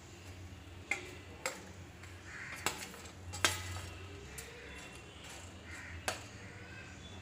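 About five sharp metallic clinks and knocks, one every second or so with a longer gap before the last, from steel kitchenware being handled: a stainless steel serving plate beside the stove. A low steady hum sits underneath.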